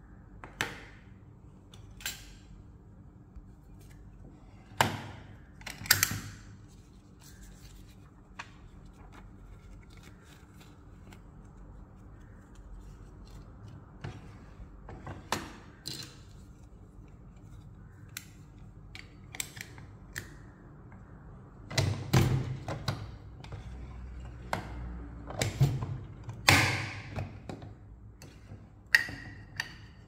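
Separate clicks, clacks and clunks of a hand-lever 50 mm square button badge press being loaded and worked, with its metal badge shells and pin backs being handled. They come one at a time with gaps between, and the loudest cluster falls about two-thirds of the way through, over a faint steady hum.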